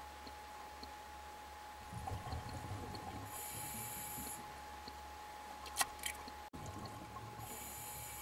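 A scuba diver breathing through a regulator, heard underwater: a burble of exhaled bubbles about two seconds in, then about a second of hissing inhalation, and the same cycle again near the end. Two sharp clicks come in between, about six seconds in.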